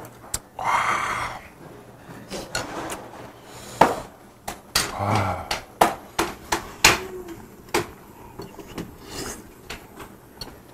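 Eating at the table: sharp clicks of metal chopsticks against the pot and dishes, with short breathy rushes of blowing and slurping over hot food, loudest about a second in and again about five seconds in.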